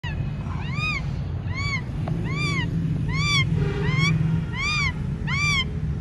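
An animal giving a clear, meow-like call about every 0.8 seconds, seven times, each call rising and then falling in pitch, over a steady low hum.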